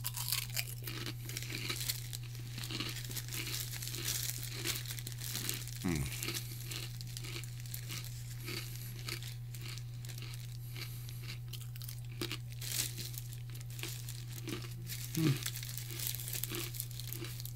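Clear plastic snack bag crinkling and rustling as it is handled, in irregular crackles, over a steady low hum.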